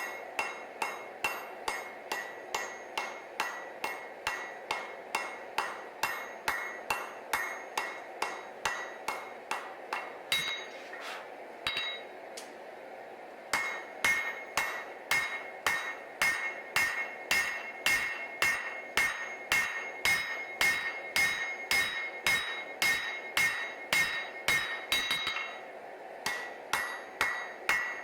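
Hand hammer striking hot Damascus steel on an anvil while forging a knife blade, about two ringing blows a second. The blows stop briefly twice, then resume harder. A steady rushing noise runs underneath.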